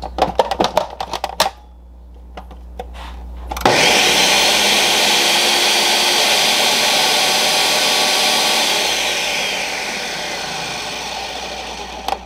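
A few light clicks as the blender jar and lid are handled. Then a countertop blender starts abruptly and runs steadily, blending raw eggs and spinach. Its whine falls in pitch and it grows quieter as the motor winds down near the end.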